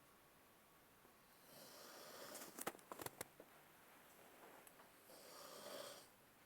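Snoring: a drawn breath that breaks into a short rattling snort a little under three seconds in, then a second, smoother snoring breath near the end.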